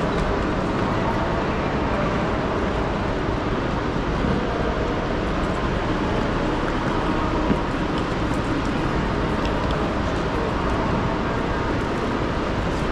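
Steady din of a busy railway station concourse, with a few faint clicks in the second half.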